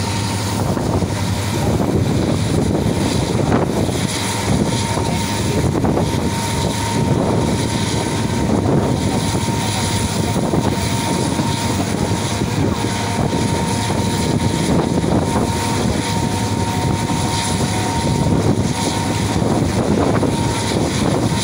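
HGMU-30 diesel locomotive running under power at the head of a moving passenger train, a steady engine drone mixed with rushing wind and wheel and running noise, heard from the open doorway of the coach right behind it.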